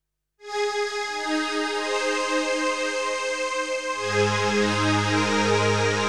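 Arturia SQ80 V software synthesizer, an emulation of the Ensoniq SQ-80, playing its 'Sunrise Vocal Pad' preset: a held chord with a pulsing texture that starts about half a second in. Low bass notes join about four seconds in.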